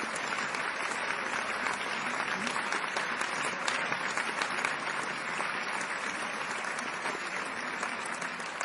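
Large theatre audience applauding: dense, steady clapping from many hands, easing off slightly near the end.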